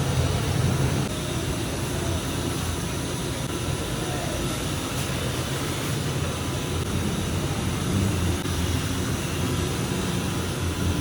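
A steady low roar, with faint voices in the background.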